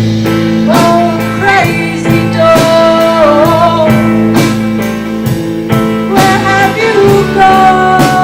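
Live folk-rock band playing an instrumental break: a lead guitar holds and bends sustained notes over bass notes and a steady drum beat.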